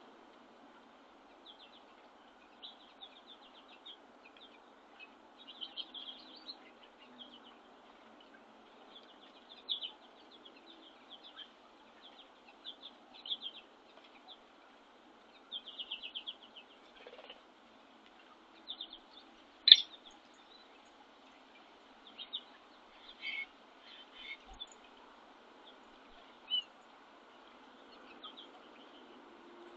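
Small songbirds at a winter backyard feeder giving many short, high chirps and quick chirp series on and off, with one louder, sharper note about two-thirds of the way through.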